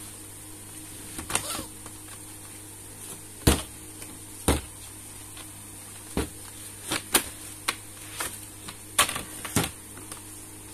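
Hard plastic basket being handled and flexed on a table: an irregular string of sharp knocks, clicks and creaks, the loudest about three and a half seconds in, over a steady background hum.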